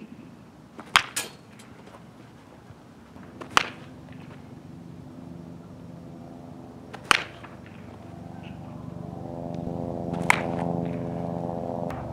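Baseball bat hitting pitched balls in batting practice: four sharp cracks a few seconds apart, the first followed by a smaller knock. Under them a steady motor-like hum comes in a few seconds in and grows louder near the end.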